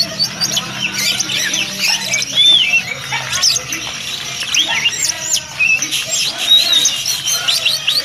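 Oriental magpie-robin singing continuously: a rapid, varied stream of loud whistled notes, arching slurs and chirps.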